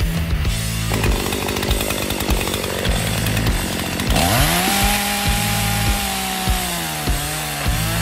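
Echo two-stroke chainsaw revving up to full throttle about halfway through and cutting into the base of the trunk, its pitch sagging briefly near the end. Background music with a steady bass plays throughout.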